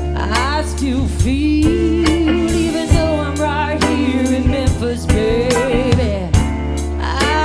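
Blues-rock band playing live: drum kit keeping a steady beat over bass, with a lead melody of long notes that bend and waver.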